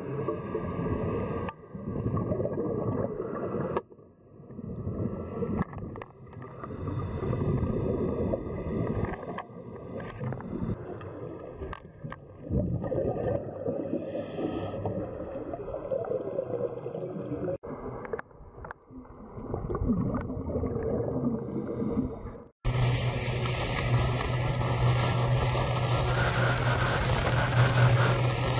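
Muffled underwater noise from a camera in a waterproof housing, broken off abruptly by several cuts. Near the end it cuts to the surface, where a small boat's engine runs with a steady low hum under wind and water noise.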